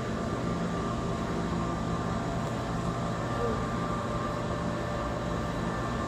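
Steady mechanical hum of room machinery, such as aquarium pumps or air handling, holding several constant tones with no change.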